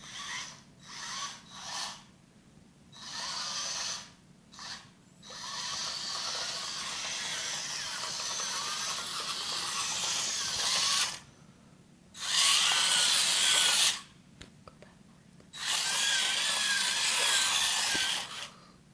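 Small electric gear motors of a hobby remote-control car whirring in bursts as it drives and stops. There are several short spurts at first, then a long run of about five seconds and two more runs of a few seconds each, with a whine that wavers in pitch.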